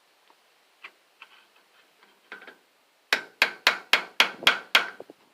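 Hammer blows on metal while breaking down an electric motor for scrap: a few light taps, then a quick run of seven sharp strikes, about four a second.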